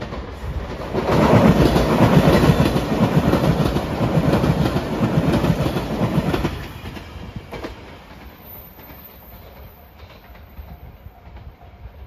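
A JR Shikoku 8000 series electric express train, five cars, passing close by, its wheels clattering rapidly on the rails. It swells about a second in, stays loud for about five seconds, then drops away quickly.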